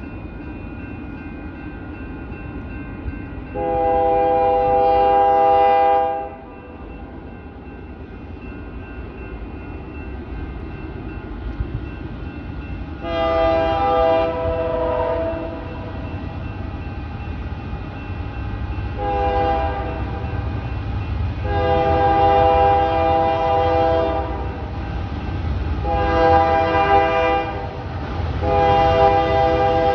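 Locomotive air horn sounding a multi-note chord in six blasts, long, long, short, long, short, long, over the steady low rumble of the train.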